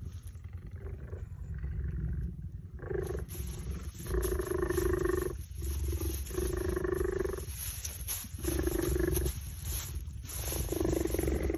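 Cheetahs purring: a continuous low rumble that swells into a pitched hum in about five cycles of roughly a second each, with short breaks between.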